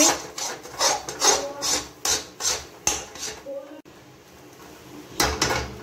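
Steel spatula scraping and stirring thick, drying dal around a steel kadhai, about two or three strokes a second, then a pause and one louder clatter near the end. The water is being cooked off to leave the dal dry and crumbly.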